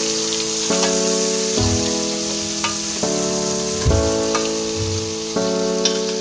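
Shrimp and garlic frying and sizzling in a stainless steel pot, with a metal spoon stirring and clinking against the pot now and then. Background music of held chords, changing about every second, plays over it.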